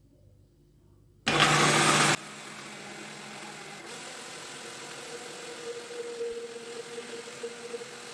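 Countertop blender switched on about a second in, very loud for about a second, then running steadily with a hum while oil is drizzled in to emulsify mayonnaise.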